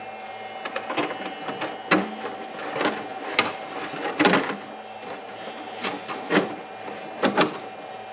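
A run of short, irregular clicks and brief mechanical whirs, about a dozen over eight seconds, from a powered-up Traxxas TRX-4 RC truck being handled and worked, over a faint steady hum.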